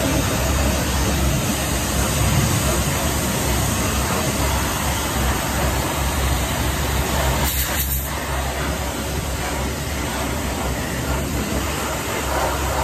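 Hot-water pressure washer spraying a tractor chassis: a steady hiss from the jet over the low, even drone of the washer's pump.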